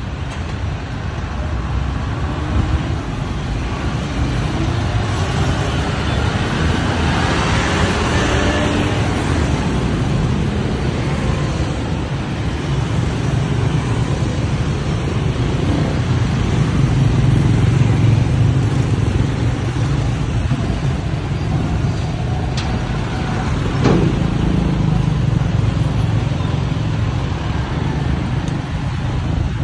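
Busy street traffic dominated by motorbikes and scooters passing close by, along with cars, a truck and a bus, their engines rising and fading as they go past. A single brief sharp knock sounds about 24 seconds in.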